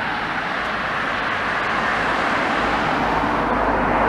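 Road traffic noise, with the hiss and rumble of a car on the road growing louder towards the end.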